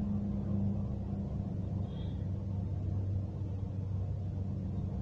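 Steady low rumble inside a car, with an even engine hum and no distinct events.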